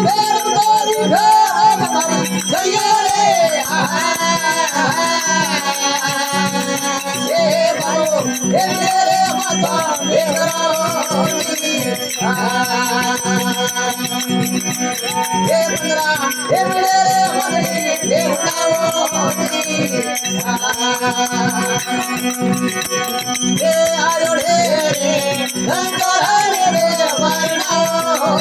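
Rajasthani folk bhajan: a sung melody over a steady drone, with quick continuous jingling of hand-held rattle percussion.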